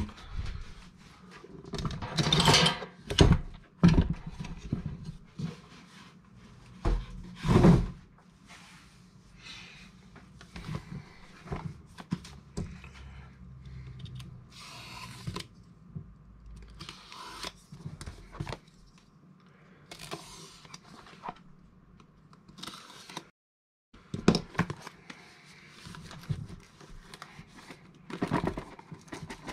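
Cardboard box and packaging being handled and opened: irregular scraping, rustling and tearing, with a few louder knocks and bumps in the first eight seconds.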